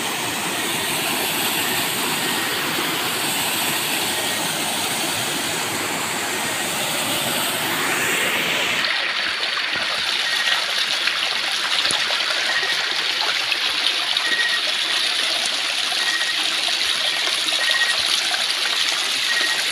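Waterfall: a steady rush of water falling into a pool. About nine seconds in, the sound switches to a thinner, higher rush of water running over a nearby rock face.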